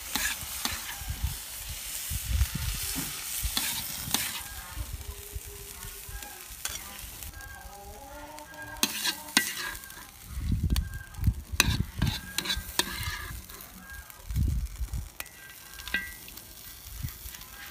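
Metal spatula scraping and clattering in a hot iron wok as stir-fried greens are scooped out onto a plate, with the wok still sizzling, the hiss strongest in the first few seconds. Dull handling thumps come later on.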